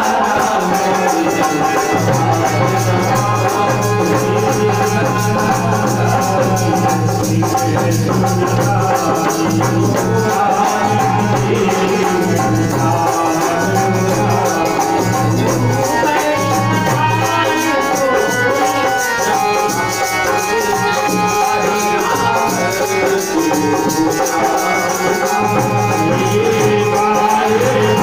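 Hindu devotional music, a bhajan, with a steady shaker-like rattling percussion over sustained melody and a low drone.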